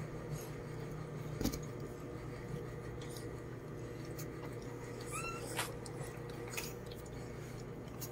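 A brief, faint, high-pitched dog whimper about five seconds in, over a steady low hum. There are a few light clicks and knocks, the loudest about a second and a half in.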